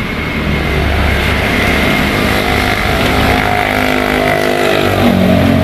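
Motor traffic, mostly motorcycle engines, running past close by as a loud, steady rumble. About three seconds in, an engine's pitch becomes more prominent and shifts slightly.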